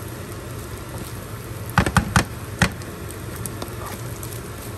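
Fried rice sizzling in a pan as it is stirred with a wooden spoon. About two seconds in, the spoon knocks sharply against the pan four times in quick succession.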